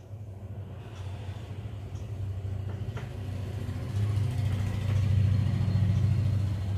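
A low, steady engine-like rumble that swells to its loudest about five seconds in and then eases off. Faint chalk strokes on a blackboard run underneath.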